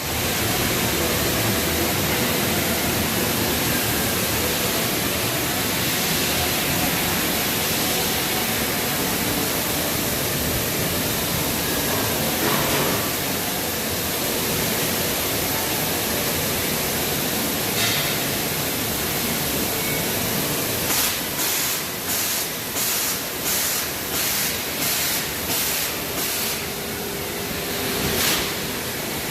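Steady loud hiss from a Bystronic Bystar 3015 CNC laser cutting system. About two-thirds of the way through, a run of about a dozen short hissing pulses comes at roughly two a second.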